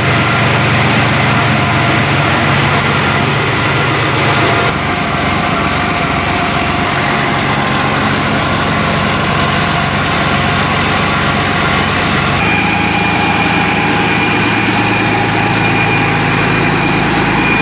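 YaMZ-240 V12 diesel engine running steadily, with the sound changing abruptly twice, about five and twelve seconds in.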